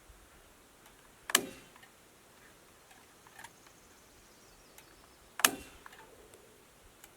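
Two sharp single strikes into wood as the porch framing is fastened, one a little over a second in and one about five and a half seconds in, each with a brief ringing tail.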